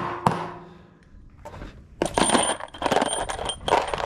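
Steel engine head bolts clinking against each other in a plastic tub. Two sharp knocks at the start, then from about two seconds in a steady run of metal-on-metal rattling.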